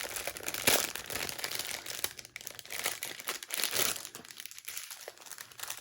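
Crinkling of small plastic packaging, the bags and strips of diamond-painting drills, being handled and opened, with irregular crackles and small sharp rustles throughout.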